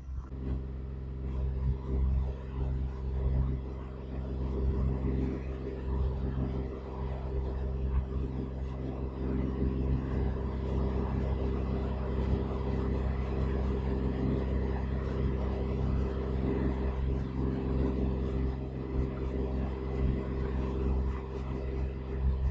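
Sailboat's auxiliary engine running steadily under way at a constant speed, a low, even drone.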